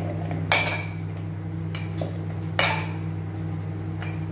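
A stainless steel ladle clinking against a white ceramic bowl while scooping out sliced bitter gourd: two sharp, ringing clinks about two seconds apart, with a lighter tick between them. A steady low hum runs underneath.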